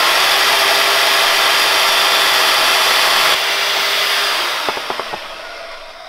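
Portable band saw mounted in a stand, running and cutting through a plastic motorcycle fender. The cut noise drops off sharply about three and a half seconds in, and the saw motor winds down over the last second or two.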